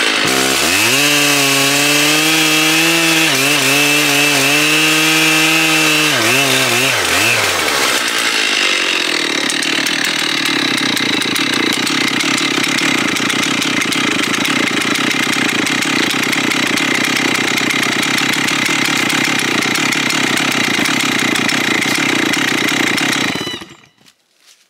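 Stihl 088 Magnum 120cc two-stroke chainsaw running at high revs while cutting through a large log, its engine pitch wavering under load. About seven seconds in the pitch drops and the sound turns rougher and noisier, and it stops abruptly near the end.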